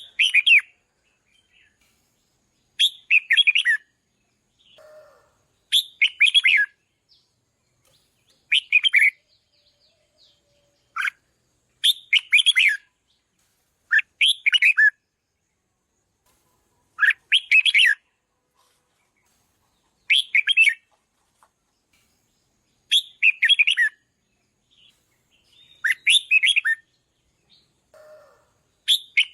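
Red-whiskered bulbul singing a short, warbled phrase about every three seconds, with brief pauses between phrases.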